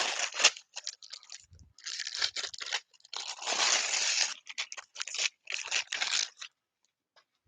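Wrapping paper being torn off a gift and crinkled in several rips, the longest about three seconds in, stopping about six and a half seconds in.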